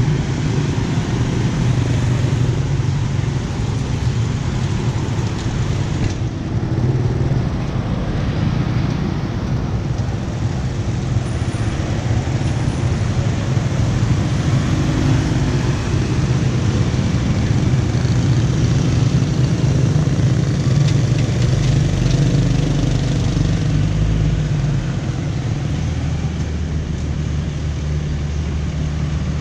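Street traffic at a city junction: motor scooters and cars driving through, their engines making a steady mixed drone.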